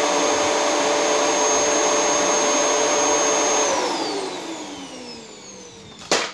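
Panasonic MC-CL565 canister vacuum cleaner running steadily with a high whine on its first test run, then switched off about three and a half seconds in, the motor winding down with a falling whine. A sharp knock comes near the end.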